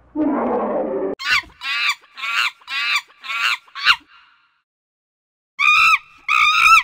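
An animal calling: a rough, noisy call in the first second, then about six short calls in quick succession, and after a pause two more longer calls near the end.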